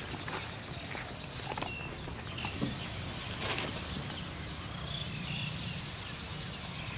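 Outdoor rural ambience: a steady high hiss with short, scattered bird chirps, and a few soft footstep knocks in the first seconds.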